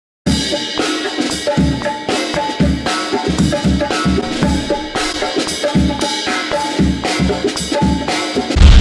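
Jazz-funk music with a drum kit playing a steady groove of kick drum, snare and rimshots over a bass line. Just before the end a loud low rumble cuts in over it.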